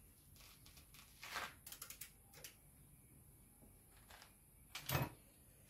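Faint clicks and rustles of small fork parts being handled by hand, with a sharper knock about five seconds in.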